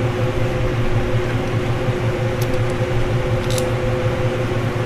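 Steady mechanical hum of a running machine, with a couple of faint light ticks about halfway through.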